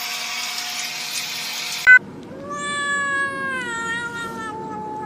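A steady machine-like hum, cut off by a sharp click about two seconds in, followed by a cat's single long, drawn-out meow that slowly falls in pitch.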